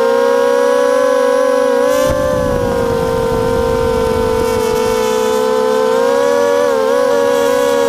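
Brushless motors of a 250-size racing quadcopter whining steadily, the pitch wavering slightly with throttle. A rush of wind noise comes in about two seconds in and fades after a second or so.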